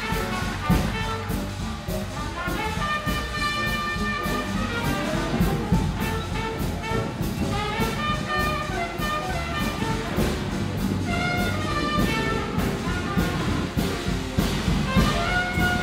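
Instrumental background music with brass instruments playing held notes over a steady beat.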